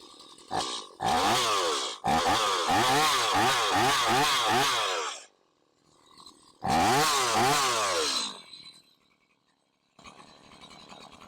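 Gas chainsaw running in bursts, its engine pitch rising and falling over and over as it is revved, with the Oregon self-sharpening attachment on the bar: the chain is being sharpened as it runs. A long burst is followed by a short pause and a second, shorter burst.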